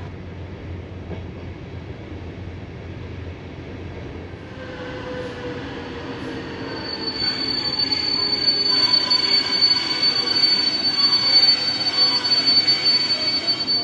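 Sleeper train rolling slowly, heard from inside the compartment. Its running noise builds about four seconds in, and a steady high-pitched metallic squeal from the running gear sets in about halfway through and holds to the end.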